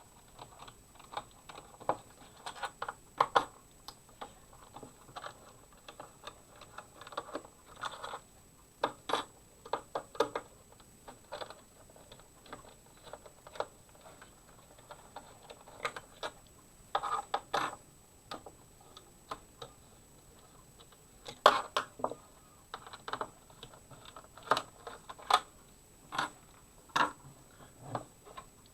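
Irregular clicks and taps of a Torx screwdriver and small screws working on the plastic case of an Xbox One S console being taken apart, coming in short clusters.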